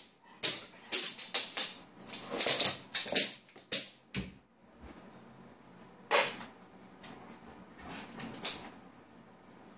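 A Labrador retriever's paws and claws tapping and scraping against a TV screen and its stand: a rapid run of sharp clicks and scrapes, thinning to a few scattered taps after about four seconds.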